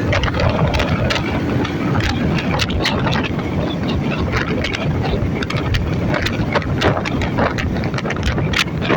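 A road vehicle running steadily on the move, with wind buffeting the microphone and frequent short knocks.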